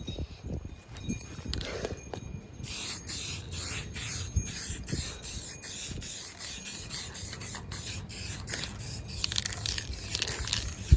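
Aerosol spray-paint can hissing in a run of short sprays with brief breaks, starting about two and a half seconds in, as a coat of paint goes on.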